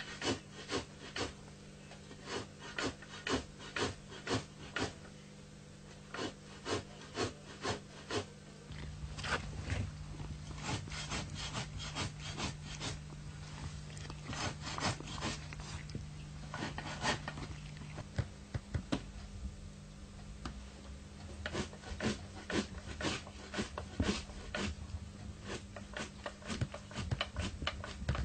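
A hand tool working a sheepskin in quick, repeated rasping strokes, coming in runs of several a second. A low steady hum runs beneath and grows louder about nine seconds in.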